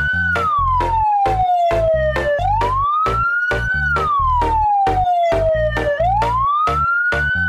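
Siren wailing, sliding slowly up and down in pitch about once every three and a half seconds, over a music track with a steady beat of about four strokes a second and a bass line.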